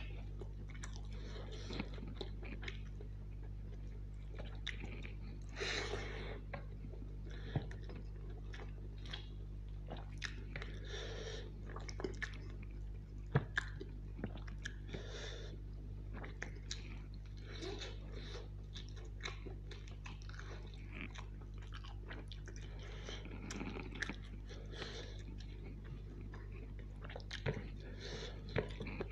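Close-miked chewing of rice and chicken curry, with wet mouth sounds and many small clicks.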